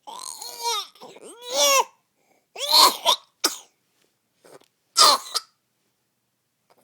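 A person coughing: two short, high, pitched vocal sounds, then harsh coughs at about two and a half, three and a half and five seconds in.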